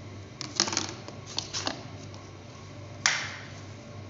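Hard plastic toy-kitchen pieces knocking together as a lid is taken off a toy pan and a plastic plate is set down: a few light clicks and taps, then one sharper knock about three seconds in.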